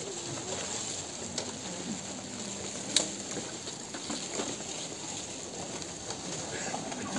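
Murmur of a crowd gathered outdoors, many people talking quietly at once with no single voice standing out. A single sharp click about three seconds in.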